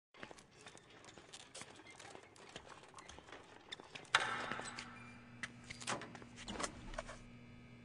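Faint scattered clicks and crackle; about four seconds in a sudden knock, followed by a low steady hum under more clicks.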